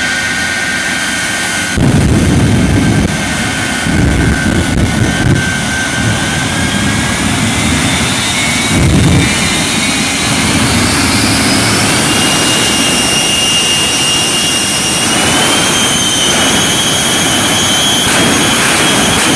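Shockwave jet semi truck's three Pratt & Whitney J34 jet engines running under a heavy roar. A high turbine whine climbs in pitch in steps as the engines spool up. Deep rumbling surges come about two, four and nine seconds in.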